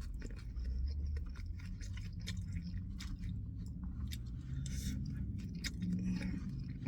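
A person chewing a mouthful of steak bowl, with many small wet mouth clicks.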